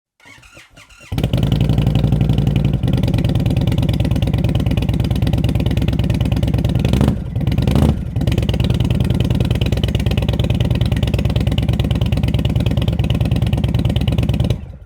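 2022 Indian Chief Dark Horse's air-cooled Thunderstroke 116 V-twin starting up about a second in and then idling through DeanSpeed Rampage slip-on mufflers, with a brief rev around the middle.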